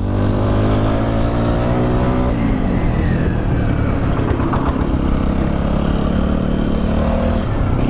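TVS Apache RTR 160 4V's single-cylinder engine running on the move, its pitch dropping about two seconds in as it eases off. A few brief knocks come around the middle.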